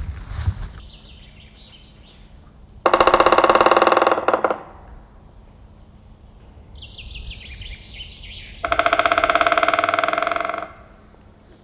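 White-backed woodpecker drumming: two long, rapid drum rolls on resonant wood, about 3 s and about 9 s in, each lasting roughly two seconds and ringing with a pitched tone. Other small birds sing between the rolls, one with a descending phrase.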